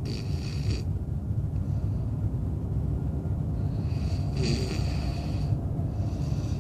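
A man snoring in his sleep, one breath at the start and more from about four seconds in, over a steady low rumble.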